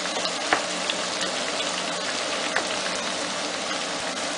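Diced aubergine, celery, onion, tomato and olives sizzling steadily in a frying pan, with scattered small crackles as the caponata cooks down.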